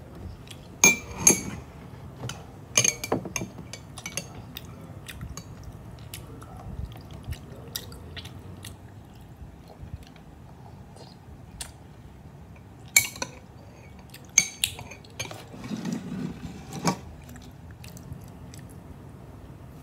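Metal spoon clinking against a ceramic mug as pearls are scooped out, with soft chewing of the tapioca pearls in between. The sharp clinks come in small clusters near the start and again about two-thirds of the way through.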